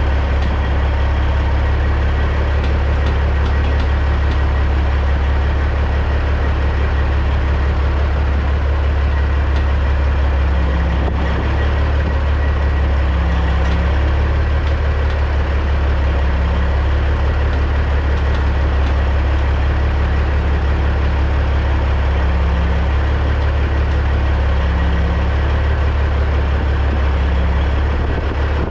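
The CAT C15 diesel of a 2006 Peterbilt 379 running at a steady low idle, heard close to the exhaust stack, as the truck reverses slowly.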